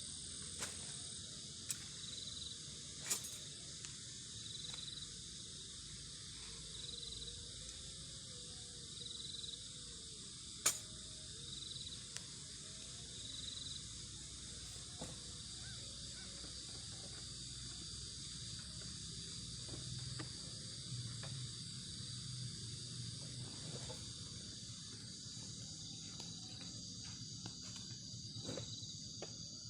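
Chorus of insects such as crickets, a steady high-pitched trilling. Over the first half, one chirp repeats about every second and a half. A few sharp clicks come through, the loudest about ten seconds in.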